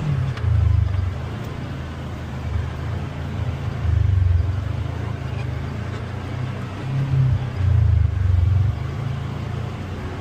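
Polaris Xpedition UTV's engine running under load on a climb, with a low rumble that swells in throttle surges about a second in, around four seconds, and again from about seven to nine seconds. The drivetrain noise is put down by the driver to the low-range gear reduction, not the CVT belt slipping.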